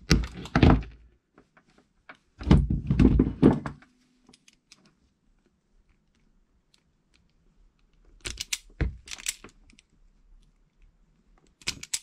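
Side cutters snipping through a cable conductor with a sharp click, then a run of thunks and knocks from hand tools being handled. About eight seconds in, a self-adjusting wire stripper clamps and snaps in a quick cluster of clicks as it strips the insulation from the cable's wires.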